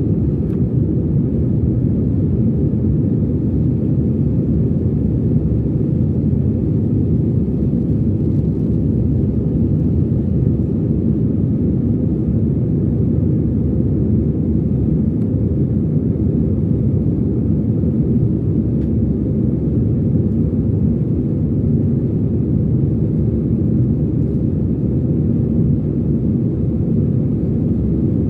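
Airliner in flight heard from inside the cabin: a steady, even low rumble of engines and rushing air that holds unchanged throughout.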